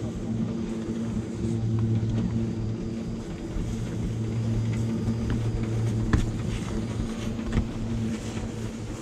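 Ski-slope conveyor-belt lift (magic carpet) running with a steady low mechanical hum, and a couple of sharp clicks partway through.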